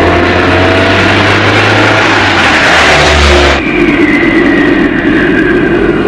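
Car engine running as the patrol car drives through strong wind: a loud rush of noise over a low engine drone. About three and a half seconds in it changes abruptly to a steadier drone with a thin wavering tone, as heard inside the car.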